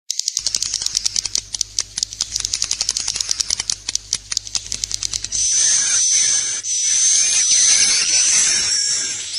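Swiftlet roosting ('inap') call: a fast run of dry, high clicks for about the first five seconds, then shrill chirping twitters. It is the kind of recording played inside swiftlet houses to draw the birds in to roost.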